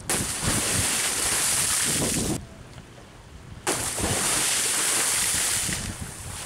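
Two bomb jumps into the sea: each lands with a sudden loud splash followed by about two seconds of rushing, falling spray. The second comes a little past halfway through.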